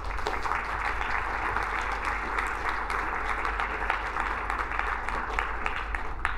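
Audience applauding, a steady patter of many hands clapping that stops near the end.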